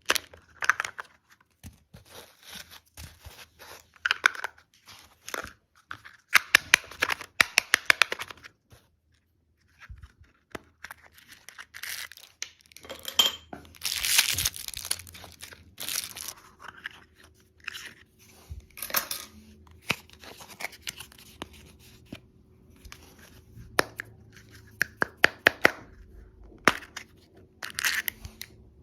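Plastic candy wrappers being torn open and crinkled by hand, in irregular bursts of crackling and sharp clicks with short pauses, and a brief silence about ten seconds in. A faint steady hum sits under the second half.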